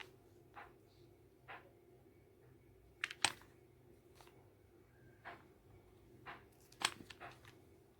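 Faint, scattered clicks and light scrapes from handling an ASG CZ P-09 airsoft pistol at its threaded barrel tip, with a sharper click about three seconds in and another near the end.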